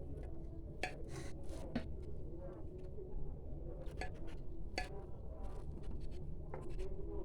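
Scattered clinks and knocks of kitchen dishes and glassware, over a steady low hum.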